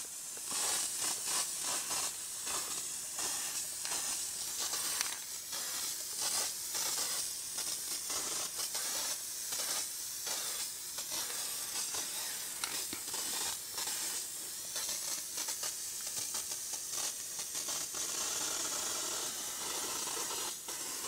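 Aerosol spray can of clear lacquer hissing as a coat of finish is sprayed onto bare wood: a long, nearly continuous high hiss with brief breaks.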